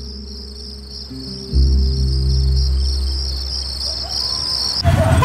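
Crickets chirping in a steady, pulsing high trill over a low, sustained musical drone that gets louder about a second and a half in. Near the end both cut off abruptly and busy street traffic noise begins.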